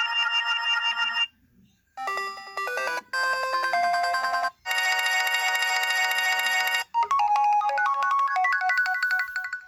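HTC phone ringtones played one after another: several short electronic melodies separated by brief gaps, the last one a tune that steps upward and fades out near the end.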